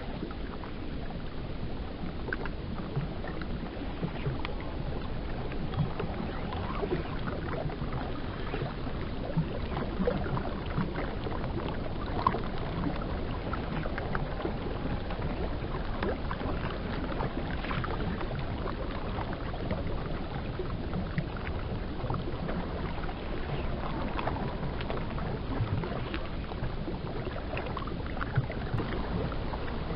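River water lapping and gurgling steadily, with many small irregular splashes and ticks.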